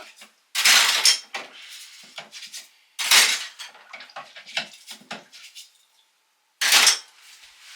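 Dishes and cutlery clinking and clattering while being washed up by hand in a small sink, with three louder clattering bursts: about half a second in, about three seconds in, and near the end.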